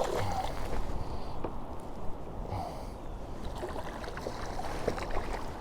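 Wind rumbling on the microphone over a kayak on open water, with scattered light knocks and taps of handling in the boat.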